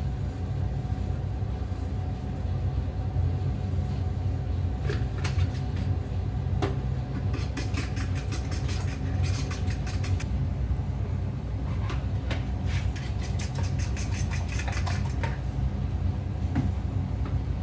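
A fork beats eggs in a white bowl, giving two runs of rapid clinking, about eight seconds in and again about twelve seconds in. A steady low rumble runs underneath.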